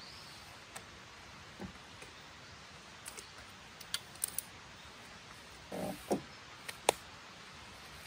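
Ultralight backpacking tent being pitched: a scatter of light clicks and snaps from the tent poles and their clips, with a couple of soft thumps a little before the six-second mark and one sharp click near the end, over a steady faint hiss.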